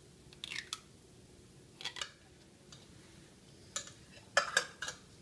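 Condensed cream of celery soup scraped from its can into a pot with a spatula, then cooked noodles tipped from a bowl into the pot: a few short, separate scraping and plopping sounds, the loudest cluster near the end.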